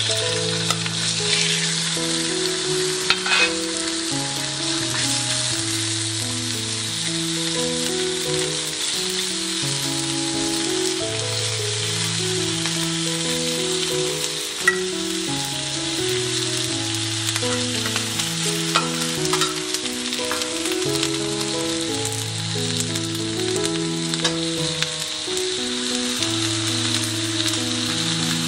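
Raw chicken breast pieces sizzling steadily in hot oil in a nonstick frying pan, with a few light clicks as pieces are set into the pan. A light background music melody plays underneath.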